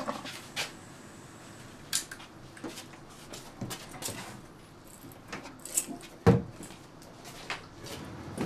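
Kitchen handling sounds: a wooden cupboard door is opened and things inside are taken out. Scattered light knocks and clinks run throughout, with one louder thump a little past six seconds.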